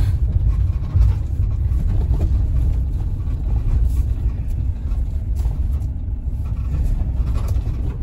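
Steady low rumble of a motorhome driving slowly on a dirt road, heard from inside the cabin: engine and tyre noise, with a small jolt about a second in.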